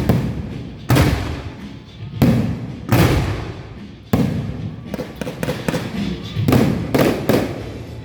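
Fireworks going off in a series of about seven loud booms, spaced irregularly, each followed by a rumbling tail that dies away over about a second.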